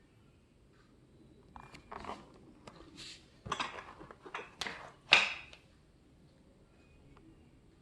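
Handling noises from unboxing: a run of knocks, clinks and rustles, the loudest a sharp knock about five seconds in.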